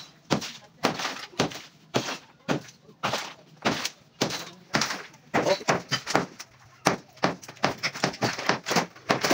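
Hammer blows demolishing a plastered concrete wall: irregular sharp knocks, about two a second, with concrete cracking and breaking off.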